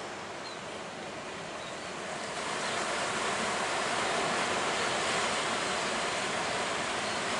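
Sea surf rushing and washing in, a steady roar of noise that swells louder about two and a half seconds in.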